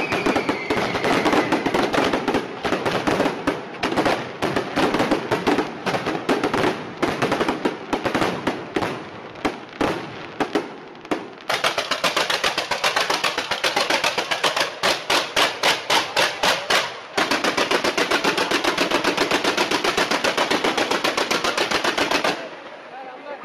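Fireworks display going off in a dense barrage of rapid bangs and crackling, with a falling whistle in the first second. A little past the middle the bangs settle into an even run of about four or five a second. Then comes a very fast, unbroken string of bangs that stops abruptly near the end.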